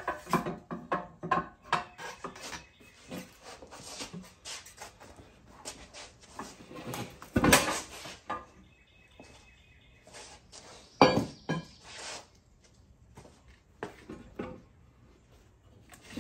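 Manual Harbor Freight tire changer being worked by hand: the steel mount bar levered around the centre post to push a tire bead over the rim, giving repeated metal clanks, knocks and scraping, with two loud sharp clanks about halfway through and a few seconds later.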